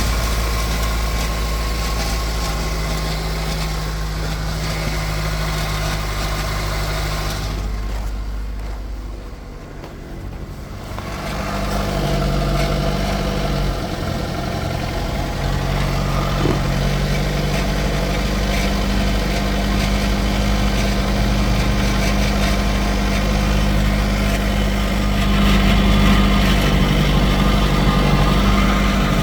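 Car engine running steadily at idle, with an automatic transmission making an unwanted noise that is the suspected fault. About a third of the way through the sound briefly drops away, then the steady hum comes back with a slightly changed pitch pattern.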